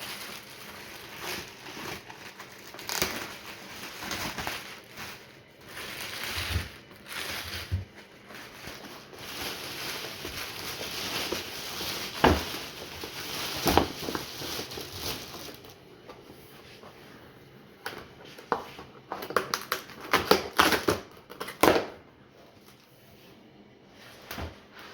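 Crinkling and rustling handling noise with scattered sharp clicks and knocks. A tight cluster of quick clicks and knocks comes near the end.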